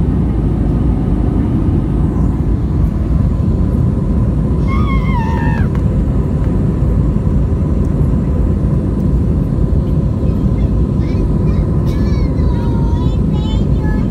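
Airbus A320 cabin noise heard from a window seat over the wing while climbing out: the engines and airflow make a steady, loud low rumble. A couple of brief voices rise over it about five seconds in and again near the end.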